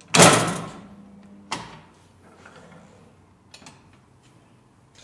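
Magnetic sheet-metal folder clanking as its beam and clamp are worked. There is a loud metal clank just after the start that rings away, a second, smaller clunk about a second and a half in, and a few light clicks near the middle.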